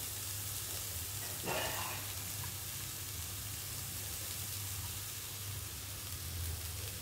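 Carrot, beans and moong dal frying gently in a kadai over a low flame: a steady soft sizzle with a low hum under it, and one short sound about a second and a half in.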